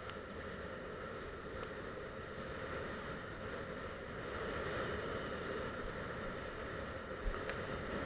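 Small motorboat under way: a steady engine drone mixed with water rushing past the hull, with a sharp knock about seven seconds in.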